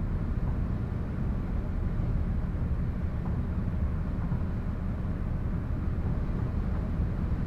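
City ambience: a steady low rumble of distant traffic that neither builds nor fades.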